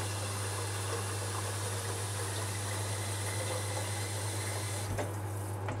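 Water running steadily from a kitchen tap into an electric kettle as it is half filled, shutting off about five seconds in. A low steady hum runs beneath.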